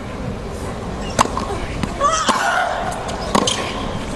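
Tennis racquets striking the ball in a rally: a sharp pop from the serve about a second in, then further hits near two seconds and three and a half seconds, with a brief voice around the second hit, over a steady crowd hush.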